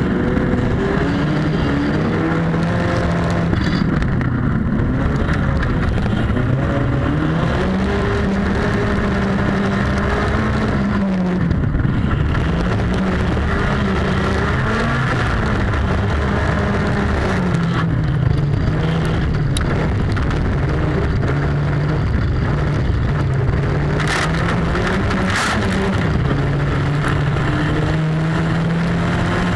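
Autocross race car's engine heard from inside the cabin, its pitch climbing and dropping again and again as it is driven hard, over gravel and tyre noise. Two sharp knocks about three-quarters of the way in.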